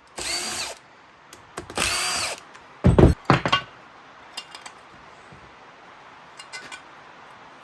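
A cordless power tool spins bolts out of the ATV engine's top end in two short bursts, each a whine that rises and then holds. About three seconds in comes a loud clunk, followed by a few light clicks.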